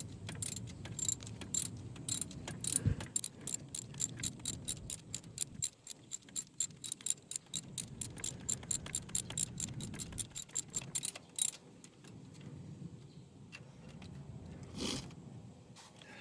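Ratchet wrench clicking quickly and evenly as a bolt is turned, about four or five clicks a second, stopping about eleven seconds in.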